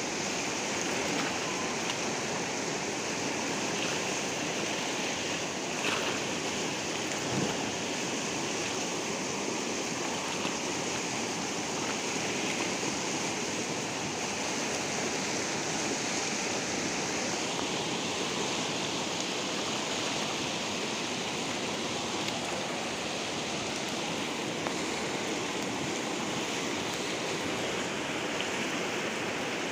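Steady rushing of a fast-flowing, turbulent river running in rapids, an even hiss of water.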